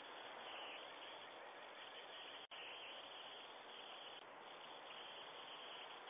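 Faint outdoor ambience through a Ring doorbell camera's microphone: a steady hiss with no distinct events, broken by a split-second dropout about two and a half seconds in.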